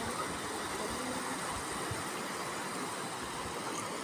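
Shallow stream rushing steadily over rocks and small riffles, a continuous even wash of water noise.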